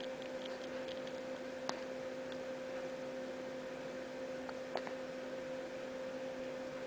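Baby hiccuping twice, two short sharp hics about three seconds apart, over a steady hum.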